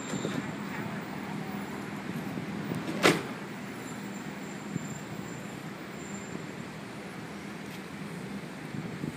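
Steady low road and engine noise of a car moving slowly down a city street, with one sharp click about three seconds in.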